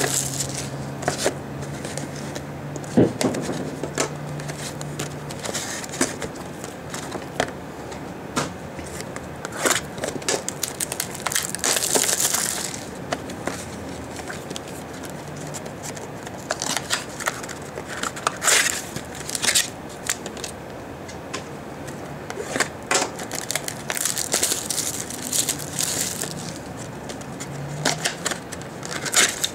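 Wrapping crinkling and tearing and cardboard rustling as a sealed box of trading cards is opened by hand, in irregular crackly bursts with a few light knocks.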